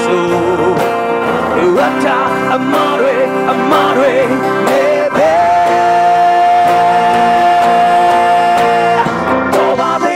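A man singing into a microphone, backed by acoustic guitar and keyboard in a live worship band. He sings a few bending runs, then holds one long high note for about four seconds.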